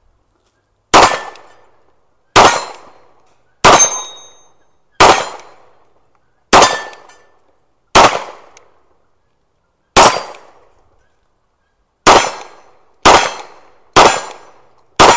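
Tanfoglio pistol in .38 Super fired eleven times as single aimed shots, at first about one every one and a half to two seconds, then quickening to about one a second near the end.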